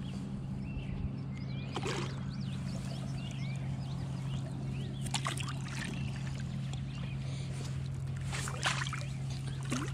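Flathead catfish splashing and flopping at the water's edge in three short bursts as it is handled. Behind it are a steady low hum and scattered high chirping calls.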